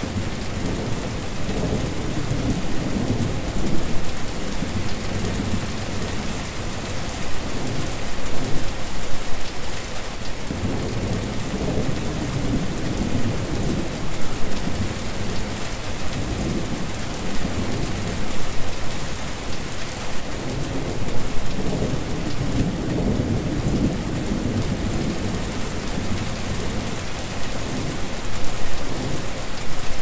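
Steady rain falling on a wet surface, an even hiss, with a low rumble underneath that swells and fades every few seconds.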